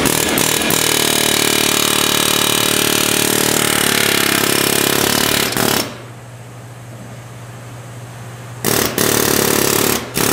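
Pneumatic impact wrench run in one long burst of about six seconds, its pitch rising over the first second as it spins up, then two short bursts near the end while working a suspension nut.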